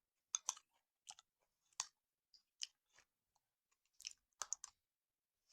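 Faint, close-up eating sounds: a dozen or so short, irregular mouth clicks and smacks of someone chewing.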